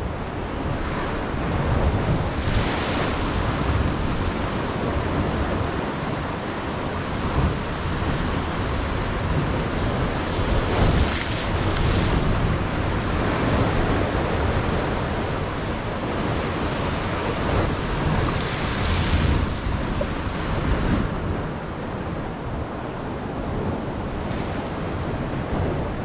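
Sea surf washing and breaking against the rocks at the foot of a cliff, a steady rushing wash that swells louder three times: a few seconds in, near the middle, and about three-quarters through. Wind buffets the microphone throughout.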